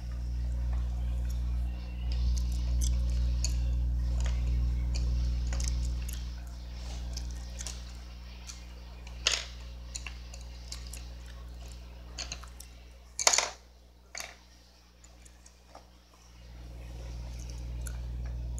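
A steady low hum, strongest for the first few seconds, then fainter, then swelling again near the end. Several sharp taps and knocks on a tabletop, from hands handling a coloring book and colored pencils, about halfway through.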